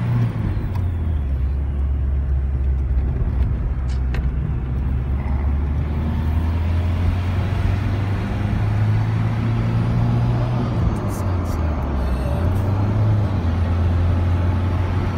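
Road noise inside a moving car's cabin: a steady low engine and tyre drone, its pitch shifting a couple of times.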